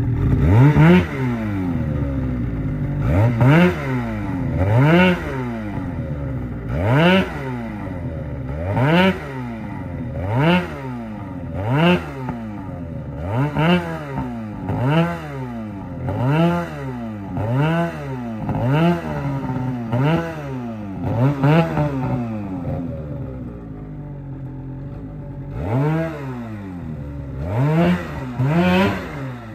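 Snowmobile engine being revved again and again, about fourteen sharp throttle blips roughly every second and a half, then running steadily at a lower pitch before two more revs near the end. The sled is spinning its track in deep snow as the rider tries to trench it down a steep sidehill.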